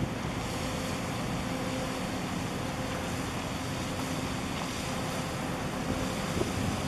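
Steady low engine hum from a large container ship passing close by, over a continuous wash of wind on the microphone and moving water.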